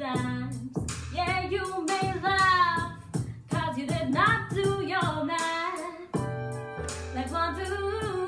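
Teenage girl singing a song solo, her voice rising and falling through the phrases over instrumental accompaniment with steady low bass notes.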